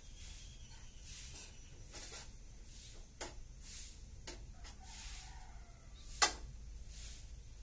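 Quiet background with a hiss that swells and fades every half second or so and a few small clicks, then one sharp click about six seconds in.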